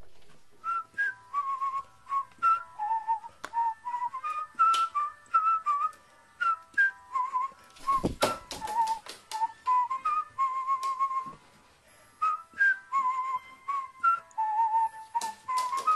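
A run of short, wavering whistled notes, one after another, with light clicks and knocks between them and one louder thump about eight seconds in.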